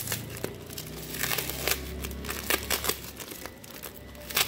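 Tissue paper and packing tape wrapped around a plant pot crinkling and rustling as they are handled and pulled off, in irregular crackles, busiest about a second in, with one sharper crackle near the end.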